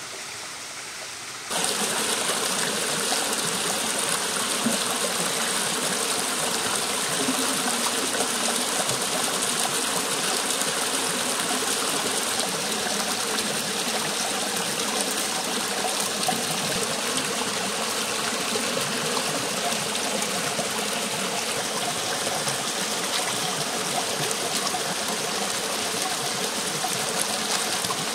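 A creek flowing steadily over rocks, a constant rushing trickle; it gets louder about a second and a half in.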